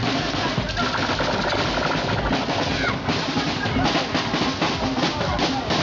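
Carried street drums, a bass drum among them, playing a fast, dense rhythm for dancing.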